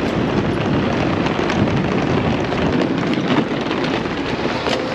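Hard-shell suitcase wheels rolling over rough asphalt and a painted crossing, a steady grainy rumble with a few light clicks.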